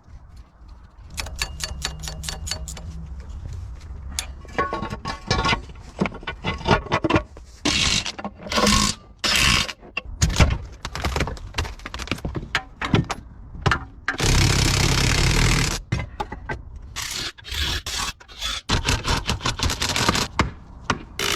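Mechanic's hand-tool work on an outboard motor: scraping, clicking and knocking, with a quick run of regular clicks near the start. Several short bursts of hissing noise come through, the loudest lasting about two seconds, a little past halfway.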